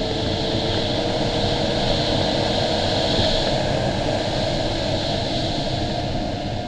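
Airflow rushing over the canopy of an LS-4a sailplane in flight, growing louder toward the middle and easing off, with a steady tone that slowly rises in pitch.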